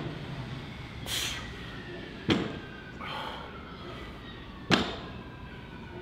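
A loaded barbell touching down on the gym floor between deadlift reps in a warm-up set: two sharp thuds of the plates about two and a half seconds apart.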